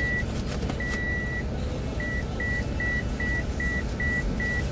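A vehicle's warning beeper sounding a single high tone, first in a few long beeps, then in short beeps about two and a half a second from about two seconds in. A low idling-engine rumble runs underneath.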